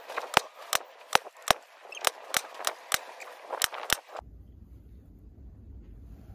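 Hammer striking a steel punch on a small copper flower blank resting on a steel bench block, stamping dot texture into it: about a dozen sharp metallic taps, roughly three a second, that stop about four seconds in.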